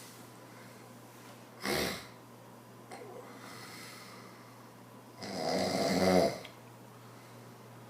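A sleeping man snoring: a short snore about two seconds in, then a longer, louder snore about five seconds in.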